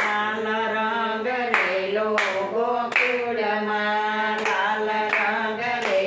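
Two women singing a Gujarati devotional bhajan unaccompanied, with hand claps keeping the beat about once a second.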